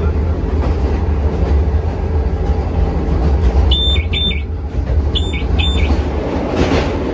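Vande Bharat Express electric train running at speed: a loud, steady low rumble of the running gear. About four and five seconds in come two pairs of short, high electronic beeps.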